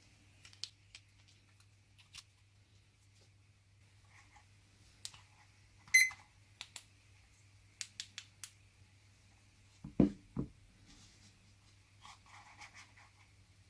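Faint, scattered clicks and taps of a small aluminium flashlight and a AAA battery being handled, with a sharper ringing click about six seconds in and a dull knock about ten seconds in, over a steady low hum.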